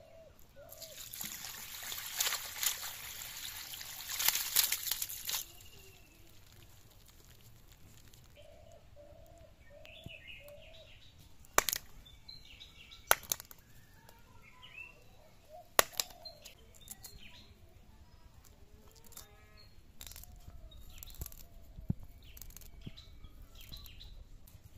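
Birds chirping in the background, with a few seconds of loud rustling, splashing noise near the start. In the middle come three sharp knocks a second or two apart, which fit a bamboo stick striking live snakehead fish on concrete to stun them.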